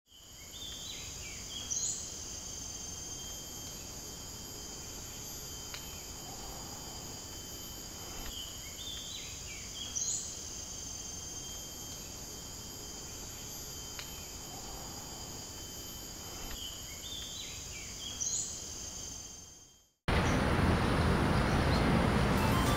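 Steady high-pitched insect chorus, several unbroken trilling tones at once, with a short burst of chirps about every eight seconds. It fades in at the start and fades out near the end.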